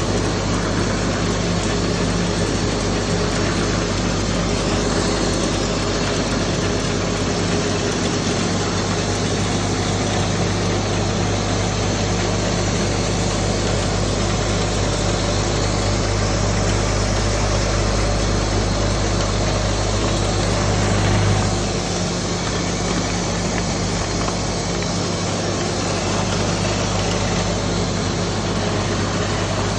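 Fethy automatic rotary compressing machine running steadily, a constant mechanical hum with a noisy whir over it; about two-thirds of the way through it swells briefly and then settles slightly quieter.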